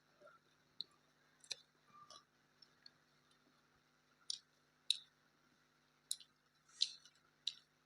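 Someone eating a rice meal: faint, sharp, wet mouth clicks and smacks while chewing, irregular, about one a second.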